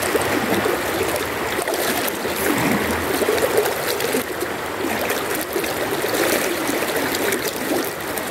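Water of a shallow river running and trickling steadily.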